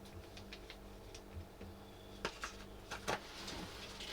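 A few small clicks and light knocks from small parts and packaging being handled on a workbench, over a steady low electrical hum.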